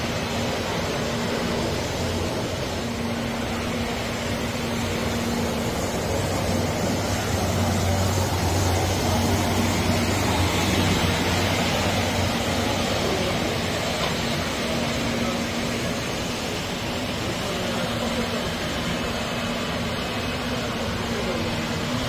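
Tennant T12 ride-on floor scrubber running as it drives: a steady hum and rush from its motors, with a low tone that fades in and out.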